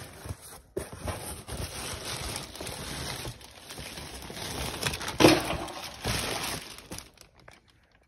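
Plastic bag packaging and a cardboard shipping box crinkling and rustling as parts are unpacked by hand, with a louder crackle about five seconds in. The handling stops about seven seconds in.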